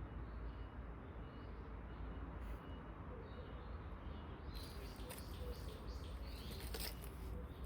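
Small birds chirping in short repeated notes over a steady low rumble. From about four and a half seconds in, a run of rustling and crackling noises joins them.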